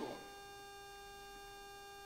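Steady electrical hum with a few faint pitched tones held level throughout, in a pause between spoken phrases; the end of a spoken word falls at the very start.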